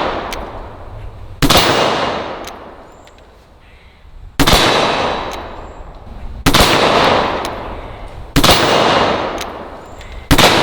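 Pietta 1851 Navy Sheriff .44-calibre black-powder revolver fired five times, roughly two seconds apart, each shot trailing off slowly. Faint clicks sound between the shots.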